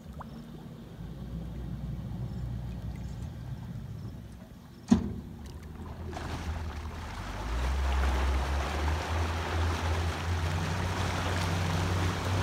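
Outboard motor on an aluminium workboat idling with a steady low hum, with one sharp clunk about five seconds in. Then the engine note rises and water churns as the boat gets under way.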